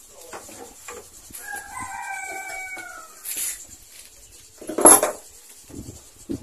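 A rooster crows once, a single call of about a second and a half. About five seconds in there is a short, loud noise, the loudest sound here.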